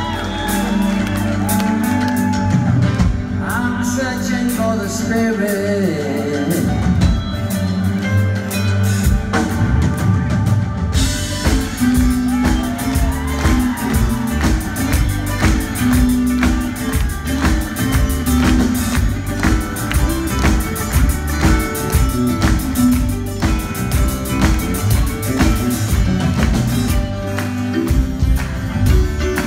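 Live band playing a song with acoustic guitars, electric guitar, keyboards and drums. Cymbals come in about eleven seconds in and the sound grows fuller.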